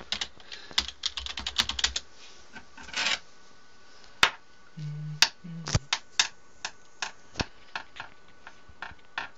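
Typing on a computer keyboard to log in: a quick run of keystrokes in the first two seconds, then single key clicks spaced out through the rest.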